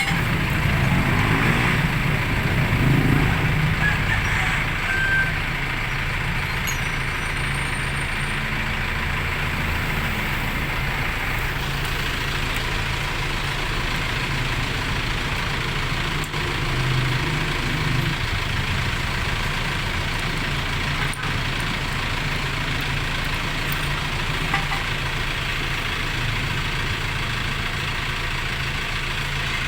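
A motor vehicle's engine running steadily, a little louder in the first few seconds.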